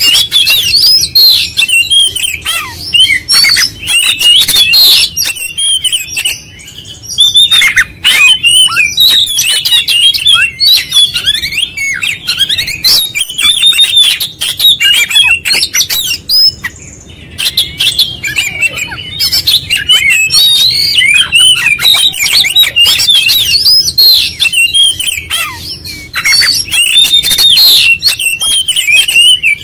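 Oriental magpie-robin singing a rapid, unbroken string of whistles and chirps, its full song repertoire, with short pauses about six and seventeen seconds in.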